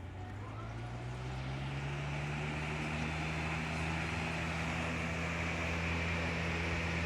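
Lasko box fan with a replacement motor starting up: a low motor hum and the rush of air build over the first two seconds as the blades come up to speed, then run steadily.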